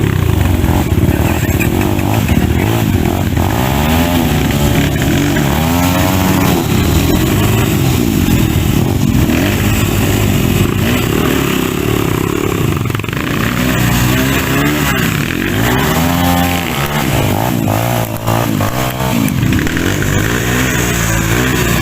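Dirt bike engine revving hard and easing off again and again, its pitch climbing and falling in several surges as the throttle is worked on rough trail.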